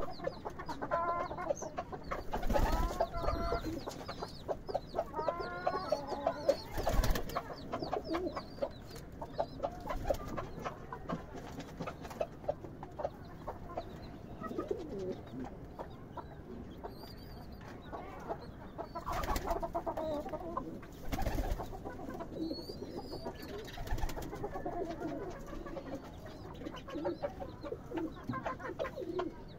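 Pigeons cooing and calling in a wooden loft, with busy higher chirping calls mixed in and a few dull thumps spread through.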